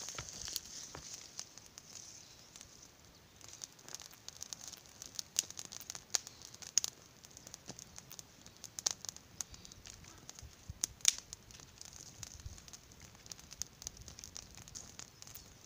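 Small campfire of dry twigs and branches crackling, with sharp snaps of dry twigs being broken and piled onto it, the loudest snaps coming from about five seconds in.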